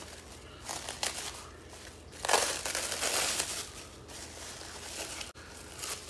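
Plastic cling wrap being peeled off a pizza dough tray, crinkling and rustling in uneven bursts, the loudest burst a little after two seconds in.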